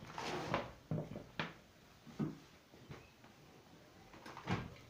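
Handling noise from a coiled rubber power cord being unwound and laid on a wooden table: several short rustles and knocks, with no motor running.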